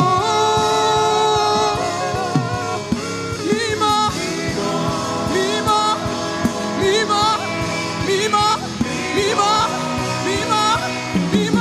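Live gospel worship music: a singer holds a long note, then sings short wavering phrases over sustained chords and percussion.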